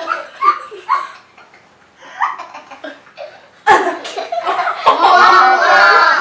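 A child laughing and giggling in short bursts, with a sudden loud burst of sound about three and a half seconds in. Music starts about five seconds in.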